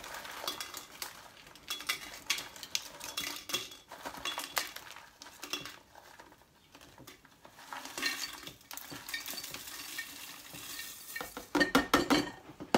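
Dried chillies being tipped and picked from a clear plastic tub into a glass jar: irregular light rattling, clicks and plastic handling noise, with a quieter moment around the middle and louder clattering near the end.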